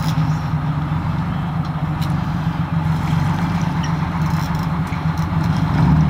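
Fishing boat's engine running steadily, a low drone with a haze of water and wind noise; it gets a little louder near the end.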